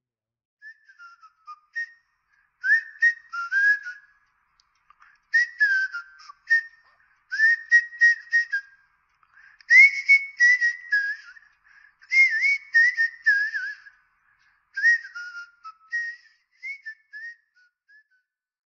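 A person whistling a tune in short phrases, the notes sliding and wavering, with a breathy hiss on them; the phrases thin out near the end.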